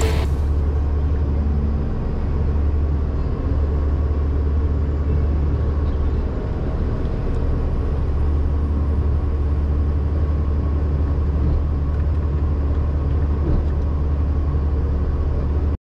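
Ponsse Buffalo forwarder's diesel engine running with a steady low rumble, heard from inside the cab while the hydraulic loader crane lifts logs onto the load. The sound cuts off suddenly near the end.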